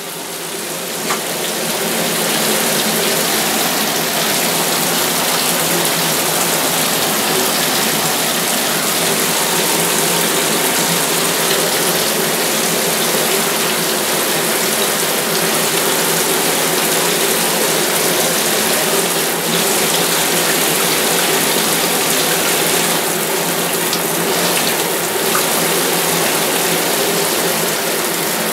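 Bathtub faucet running, water pouring steadily into the tub; it grows louder over the first two seconds, then holds steady.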